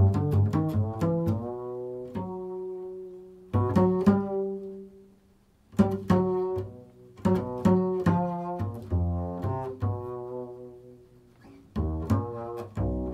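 Improvised music on a low stringed instrument: quick groups of plucked notes, each group starting sharply and ringing down, with short pauses between them.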